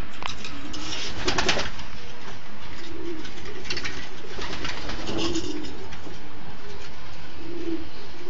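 Racing pigeons cooing repeatedly in their loft, with a few brief bursts of wing flapping, the loudest about a second and a half in.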